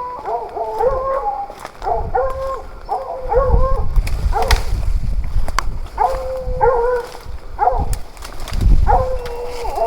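Hunting dogs baying over and over, each bay a drawn-out pitched call of about half a second to a second: the sound of hounds holding a wild boar at bay.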